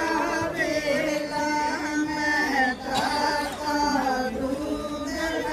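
Women singing a devotional folk song together, with long held, wavering notes.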